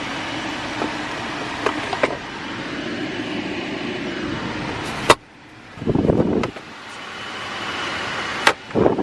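Steady hiss of the 2014 Ford Focus's climate blower inside the cabin, stopping with a sharp click about five seconds in. Two short, low, louder rumbles follow, one about a second later and one near the end.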